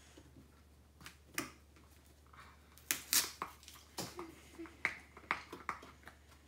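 Plastic baby powder bottles being handled while a sticker seal is picked off a bottle top: a scatter of sharp little clicks and crackles, about eight of them, loudest around three seconds in.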